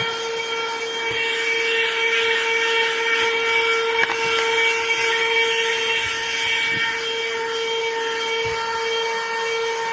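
Portable handheld vacuum cleaner running steadily with a high, even motor whine while vacuuming a car's interior. A few faint knocks come from the nozzle bumping the surfaces.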